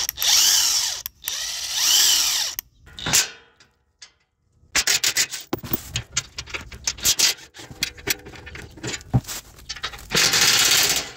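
DeWalt XR cordless impact wrench run in several bursts, its motor pitch rising and falling, as it works on the 15 mm skid plate bolts. Between the bursts come quick irregular clicks and rattles, and another long burst about ten seconds in.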